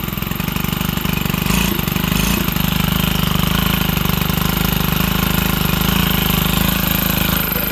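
Stihl HT 131 pole saw's small engine idling with a fast, even pulse on a test run after a rebuild, its low-speed carburettor mixture still needing adjustment.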